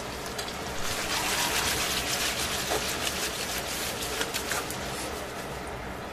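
Chicken pieces sizzling in oil in a stainless steel frying pan; about a second in the sizzle grows louder and crackles as the chicken is moved around in the pan, then settles back, ending with a sharp click.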